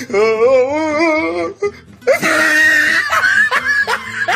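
A voice singing: one long, wavering held note, then after a short break a loud, strained note that breaks into shorter sung phrases.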